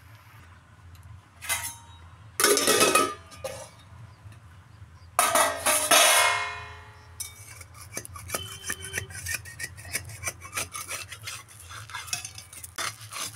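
A metal lid is lifted off an iron kadai with two loud clanks that ring on, about two and a half and five seconds in. A flat steel spatula then scrapes and taps against the pan in quick small clicks as it loosens a rice-flour pitha.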